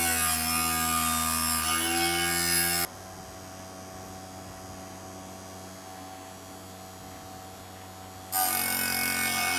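BAR Minigrinder mini grinder running with its disc against a steel saw-blade tooth, a steady motor whine whose pitch sags under load and recovers in the first two seconds. About three seconds in the sound drops abruptly to a much quieter steady hum, and the loud grinding whine returns near the end.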